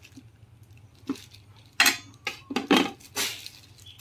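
Sharp knocks and clinks of a broad kitchen knife against a round wooden cutting board, with a plastic bag being handled, as halved bananas are pressed flat. The loudest knocks come about two seconds in and again near three seconds.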